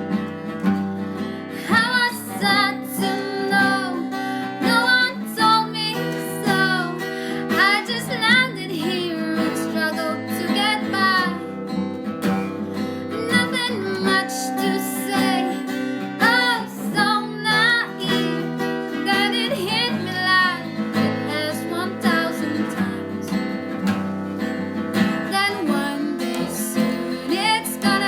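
Strummed guitar with a voice singing a song over it, played live at a sound check.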